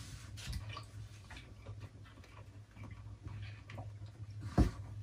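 Close eating sounds: chewing and small wet mouth clicks, scattered irregularly over a steady low hum, with one louder thump about four and a half seconds in.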